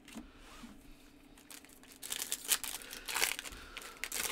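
A foil Yu-Gi-Oh! Tournament Pack 15 booster wrapper being torn open by hand, crinkling and crackling in a run of sharp rustles over the last two seconds.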